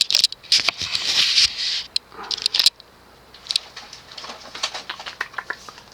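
Handling noises: rustling and scraping with a run of small sharp clicks, busiest in the first couple of seconds and then thinning to scattered ticks.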